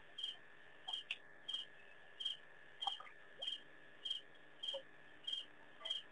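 A small night-calling animal chirping: short, high chirps repeated evenly, about three every two seconds, over a steady faint high whine.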